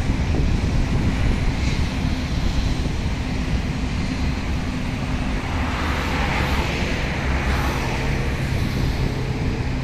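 Distant jet airliner on approach, a steady low rumble mixed with wind noise on the microphone.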